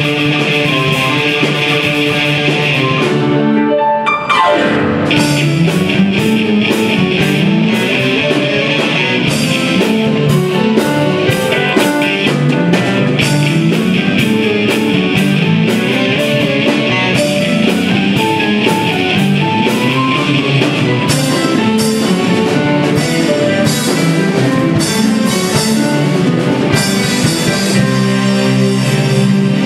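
Live student band of electric guitars, keyboards and drum kit playing a rock instrumental, with cymbals struck in a steady pulse. About four seconds in the music breaks briefly with a falling pitch slide before the band comes back in.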